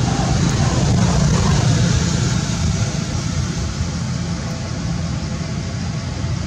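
Steady low rumble with an even hiss above it, with no clear single event.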